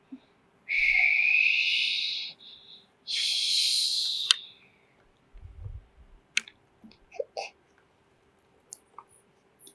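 A child making two breathy whooshing hisses with her mouth, a pretend sound effect for a toy jet ski gliding along; the first whoosh rises in pitch. A few light plastic clicks from the small toys follow.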